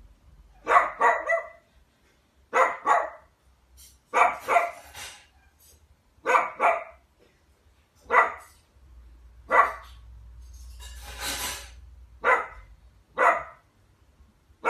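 A young dachshund barking repeatedly: short, sharp barks in twos and threes, a fresh volley every second or two.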